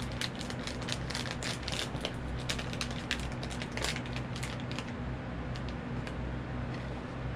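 Crinkling and crackling of a small pink blind-box packaging bag being handled and torn open, a quick run of crackles that thins out about four seconds in, over a steady low hum.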